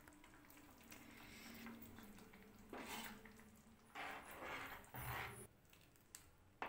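Near silence, with a few faint soft swishes of a ladle stirring and lifting thick soup in a pan, about three seconds in and again a second later.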